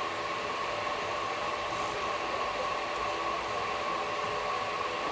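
Steady running noise of a moving passenger train, with a steady high whine mixed in.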